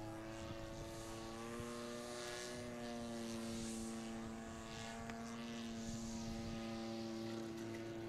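Giant-scale radio-controlled model airplane's engine and propeller droning steadily as the plane comes in to land and rolls out on the grass, the pitch shifting slightly about two and a half seconds in.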